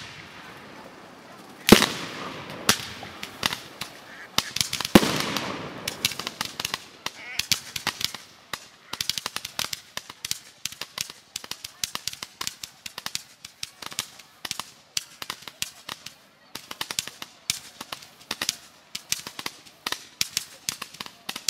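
Fireworks: two loud aerial shell bursts about two and five seconds in, each with a rolling echo, then a long run of rapid, irregular crackling pops as the spark trails burn out.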